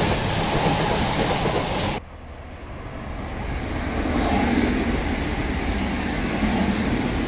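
Empty freight flat wagons rolling past close by, with a loud rumble and clatter of wheels on rail. About two seconds in, an abrupt cut to a TransPennine Express passenger train passing through; its sound rises as it comes closer, with a low hum under it.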